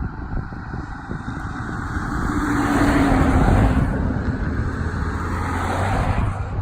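A road vehicle driving past: its noise swells to a peak about three to four seconds in, with a slight fall in its engine pitch, then eases off. Wind rumbles on the microphone underneath.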